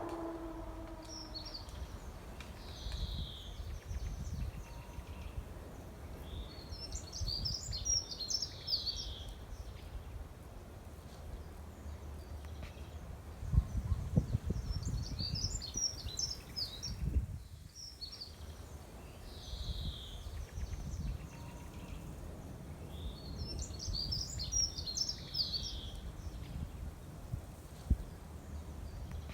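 A songbird repeating the same short warbling song three times, about every eight or nine seconds, with a few single call notes in between, over a steady low rumble of outdoor background noise.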